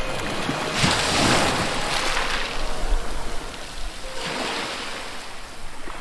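Sea water splashing and rushing against the side of a small boat, coming in several surges.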